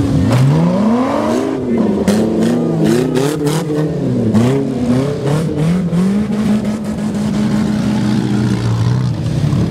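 Race car engines revving hard as cars accelerate and slide through a snow-covered turn, the engine pitch rising and falling again and again with a strong rising sweep right at the start; later one engine holds a steadier pitch for a few seconds.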